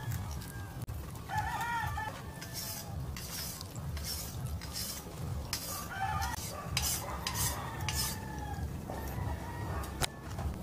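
A rooster crowing twice, about a second and a half in and again around six seconds, over repeated scraping and clinking of ingredients being mixed in a stainless steel pot.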